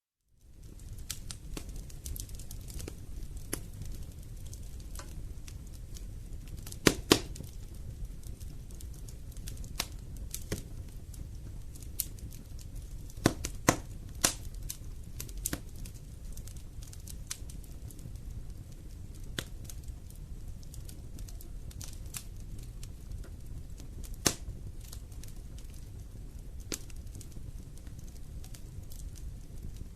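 Wood fire burning in a fireplace, crackling with scattered sharp pops over a low steady rumble. It fades in from a brief silence at the very start, and the loudest pops come about seven seconds in and again around thirteen to fourteen seconds.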